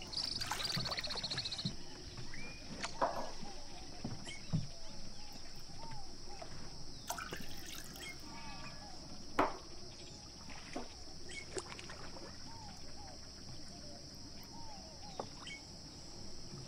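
Milk and other liquids poured from small measuring cups into a glass mixing bowl of yogurt and egg, with a few light clinks of cup against glass, over a steady high-pitched hiss.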